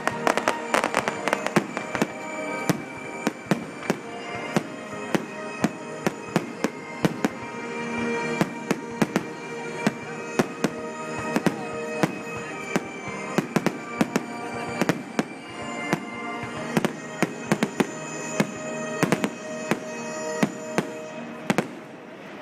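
Aerial fireworks bursting in a rapid run of sharp bangs and crackles, several a second, over music playing throughout. The bangs stop shortly before the end.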